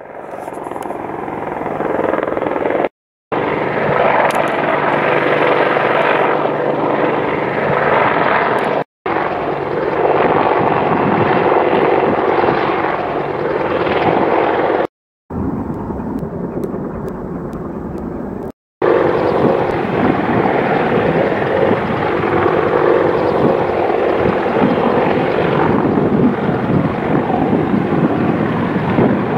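AH-64 Apache helicopter flying low and hovering in to land, its rotors and twin turboshaft engines making a loud, steady, dense thudding hum. The sound breaks off briefly four times.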